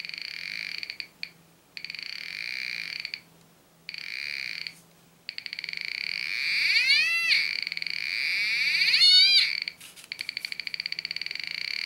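Home-built BFO (beat-frequency oscillator) metal detector's speaker giving a buzzy tone that drops out and returns several times. Twice in the second half its pitch swoops up steeply and falls back, the shift in beat note that signals metal under the search coil.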